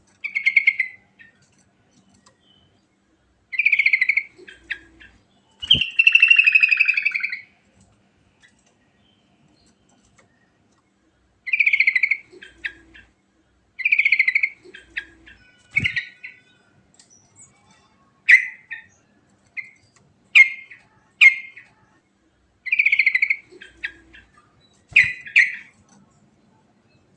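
Sooty-headed bulbul (trucukan) singing: short, clear whistled phrases repeated with pauses between them, one longer warbled phrase about six seconds in, and sharp single notes near the end. A few faint low knocks come in between.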